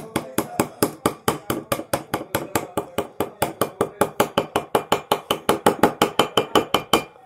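Small toy hammer tapping rapidly and steadily on a plaster dig-kit egg resting on a plate, about five or six strikes a second, chipping away the plaster. The tapping stops just before the end.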